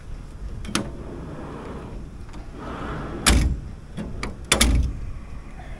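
XTM slide-out storage drawer in a ute canopy being worked by its handle: a latch click, a sliding run, then a loud thud, a couple of small clicks and a second loud thud as it slides and hits its stop.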